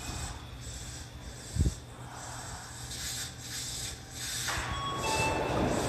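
Tokyo Metro 02 series subway train pulling into the platform and slowing to a stop, with a low rumble and one low thump about a second and a half in. From about three seconds in come short bursts of air hissing as it halts, and a few short beeping tones sound near the end.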